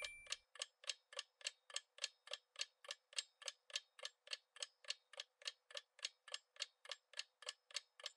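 Countdown-timer sound effect: faint, evenly spaced clock-like ticks, about three and a half a second. The tail of a chime dies away at the start.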